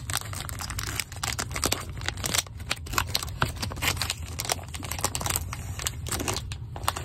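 Baseball trading cards being handled and set down on a play mat: a rapid, uneven run of light clicks, flicks and rustles of card stock.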